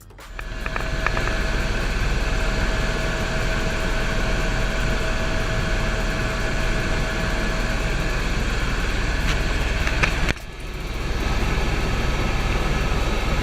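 Engine running steadily, a loud even drone with a steady high tone over it. The drone drops out briefly about ten seconds in, then comes back.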